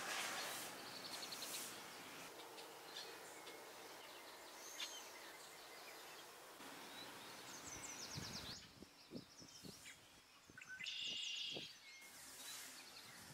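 Faint outdoor ambience with birds chirping, trilling and calling at intervals, over a steady hiss. A few soft low thumps come past the middle.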